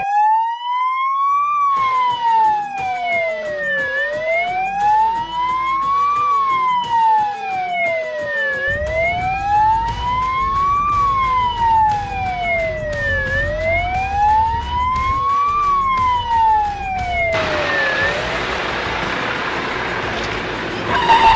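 Fire truck's electronic siren wailing, its pitch sliding slowly up and down, each rise and fall taking a bit over two seconds, over the rumble of the truck's engine. Near the end the siren fades out and a steady rushing hiss takes over.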